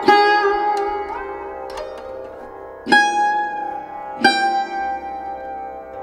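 Background music: slow plucked string notes, each struck a second or more apart and left ringing, with some notes sliding up or down in pitch.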